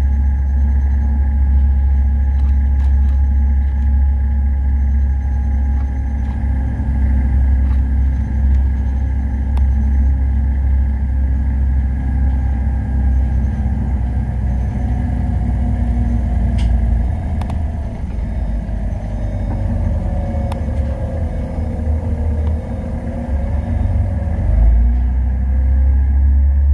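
City bus driving, heard from the driver's seat: a steady engine and road rumble with a drivetrain whine. About two-thirds of the way through the bus slows, the rumble eases and the whine falls in pitch, then the engine picks up again near the end.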